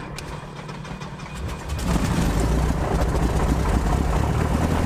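Van's RV-6A's Lycoming piston engine being started: a short spell of quieter cranking, then the engine catches about two seconds in and runs steadily and loudly.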